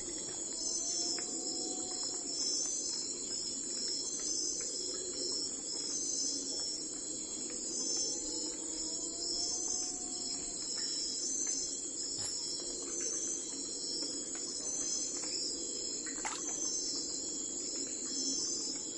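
Steady chorus of crickets trilling in fast pulses, over a constant low hum, with a few faint short calls that rise and fall.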